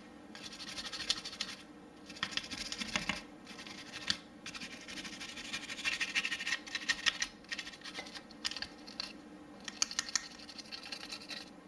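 Nylon brush scrubbing a Glock 19's frame and its metal parts, freshly sprayed with Ballistol: runs of quick, irregular scratching strokes with short pauses between them.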